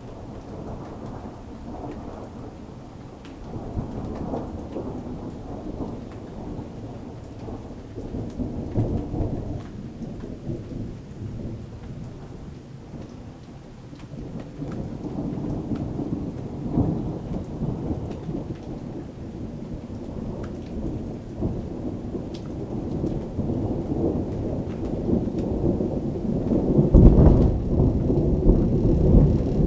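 Thunder rumbling in long rolling swells over falling rain. The rumble builds through the stretch and is loudest a few seconds before the end.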